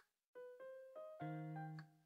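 Soft background piano music: a few single notes, then a fuller chord with a low bass note about a second in.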